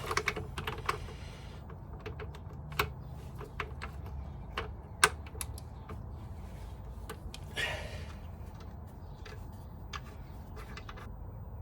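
Hand tools being handled on a motorcycle's front end: irregular metallic clicks and clinks, the sharpest about five seconds in, over a steady low hum.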